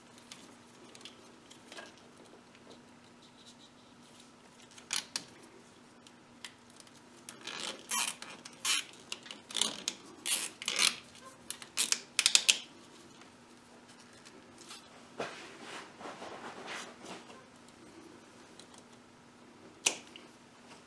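Plastic wiring-harness connector and wires being handled and tugged by hand: scattered quiet clicks and rattles, busiest in the middle, with one sharp click near the end. A faint steady hum underneath.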